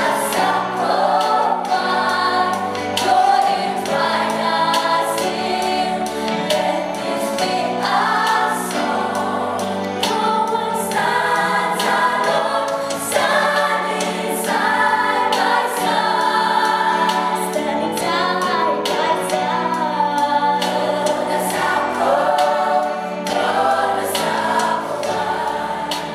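Children's choir singing a song in harmony.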